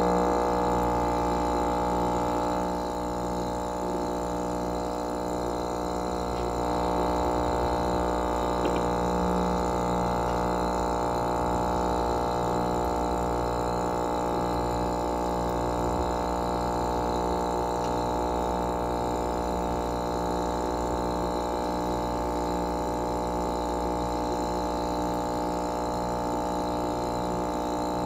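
Aquarium pump running with a steady electric hum, a buzzy tone with many overtones and a slight regular throb about once a second.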